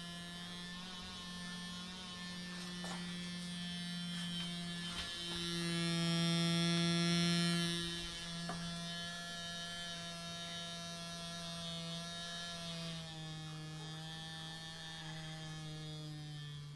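Draught blowing through the gap of a closed door, making a steady low humming tone with many overtones. It swells louder for a couple of seconds near the middle, shifts pitch slightly a few times, then cuts off.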